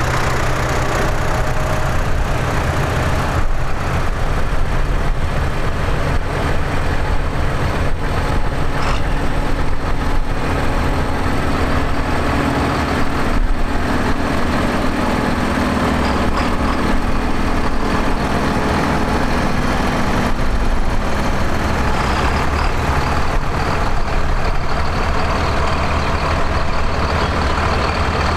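Large diesel tractors driving slowly past one after another, a steady heavy engine drone. A Valtra passes close around the middle and a John Deere 7800 near the end.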